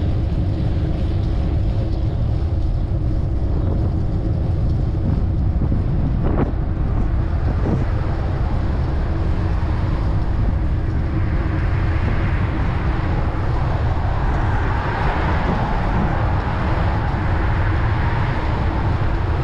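Street traffic going by a moving bicycle, over a steady low wind rumble on the microphone. The hiss of passing traffic grows from about halfway through, and there is one brief knock about six seconds in.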